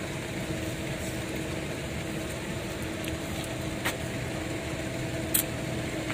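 A steady mechanical hum with a faint held tone over a background hiss, broken by two short clicks, about four and five and a half seconds in.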